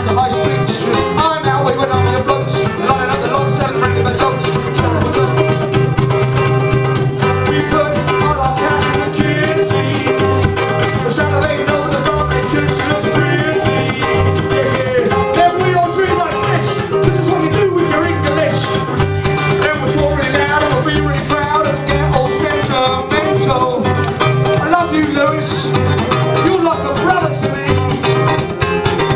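A live ukulele and bass guitar duo playing an upbeat skiffle/folk-punk number, with strummed ukulele chords over a steady bass line.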